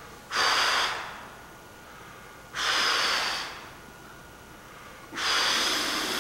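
A person breathing heavily, with three loud, rasping breaths about two and a half seconds apart, each lasting under a second.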